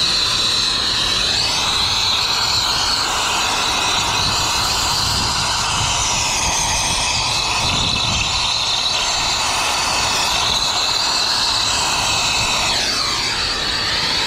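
Brazing torch flame hissing steadily as it heats a copper pipe joint on an air-conditioner condenser coil, its tone wavering briefly near the end.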